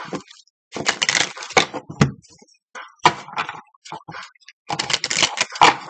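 Tarot cards being shuffled by hand: papery rustling and clatter in irregular bursts, with a few sharp taps.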